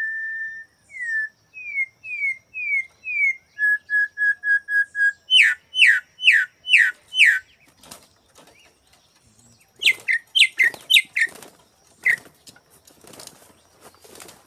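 Campo troupials (concriz) singing clear whistled notes: first level and gliding notes, then a run of loud down-slurred whistles. About eight seconds in, a bird's wings flap against the wire cage as it lands. More down-slurred whistles follow, then scuffling on the cage.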